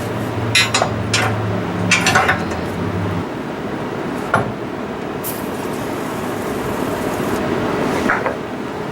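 Scattered metal clinks and knocks of a large wrench working on a suspension nut, over a steady background noise with a low hum that stops about three seconds in.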